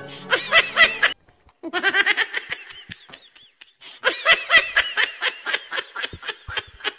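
Laughter in three bouts of rapid, high ha-ha pulses with short pauses between them.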